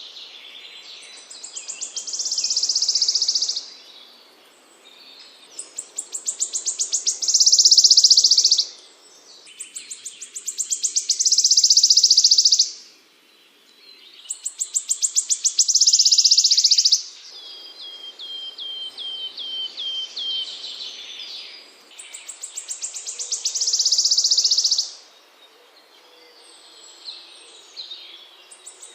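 A small songbird singing the same phrase over and over: a fast run of high ticks that speeds up into a high buzzing trill lasting about two seconds, repeated about every five seconds. In the middle of the stretch a run of short falling notes comes in place of one phrase.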